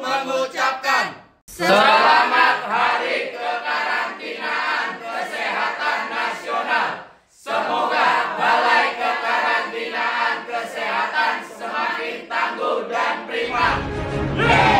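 A group of people chanting a greeting in unison, in three phrases split by short pauses. Music comes in near the end.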